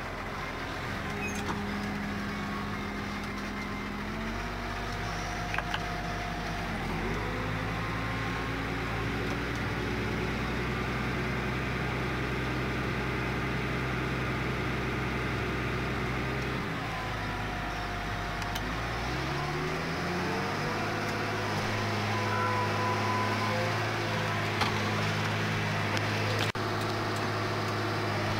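New Holland T6050 tractor's diesel engine running steadily under load, heard from inside the cab while pulling a dung spreader. The engine note steps up about four and seven seconds in, then sags and climbs back up about two-thirds of the way through.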